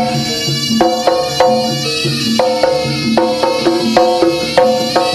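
Jaranan gamelan music: a quick repeating pattern of struck, ringing metal notes, about three a second, over drum beats.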